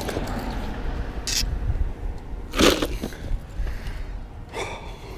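Corvina being put into a cooler packed with ice: a brief crunching rattle of ice about two and a half seconds in, with shorter, lighter scrapes before and after.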